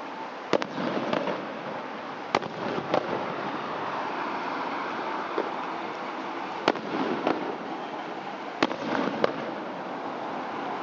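Aerial fireworks bursting: sharp bangs in small clusters, each group followed by crackling, over a steady background hiss.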